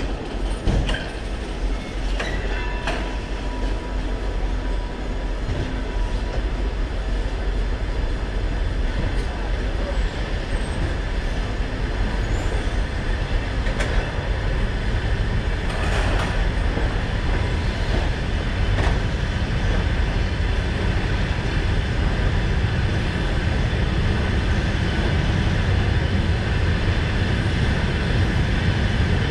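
Passenger train carriage rolling slowly out of a station, heard from inside the car: a steady rumble of wheels on rails with a few scattered clicks and knocks. The low rumble grows louder as the train gathers speed.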